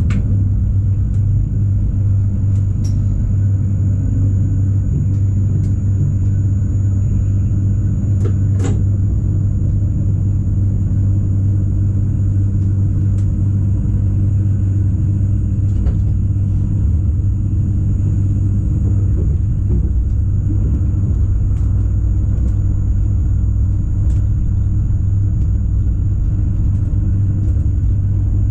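Rhaetian Railway ABe 8/12 Allegra electric multiple unit running along the track: a steady low rumble and hum with a faint high whine held over it, and a few sharp clicks scattered through.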